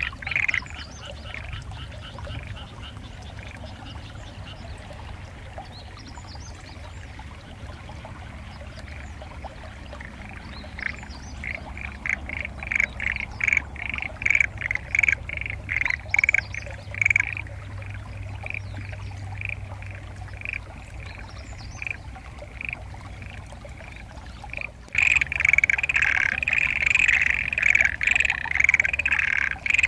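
Chorus of frogs in flooded rice paddies, which the recordist takes mostly for black-spotted pond frogs: rapid pulsed croaks that thin out for stretches and build again, over a low steady rumble. About 25 seconds in, the chorus comes in suddenly loud and dense.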